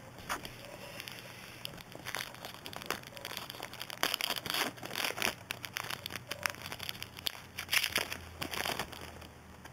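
Trading-card pack wrapper crinkling and crackling in irregular bursts as it is torn open and handled, most active in the second half.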